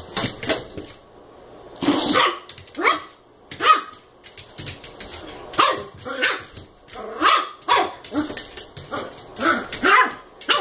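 Small dog barking in play, about a dozen short barks in irregular runs.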